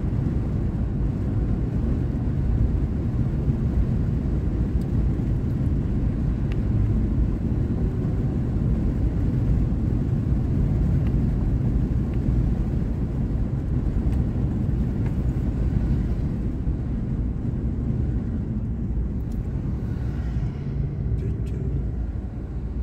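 Steady low rumble of a truck driving on the road, heard inside the cab: engine and tyre noise. It eases off a little near the end as the truck slows toward an intersection.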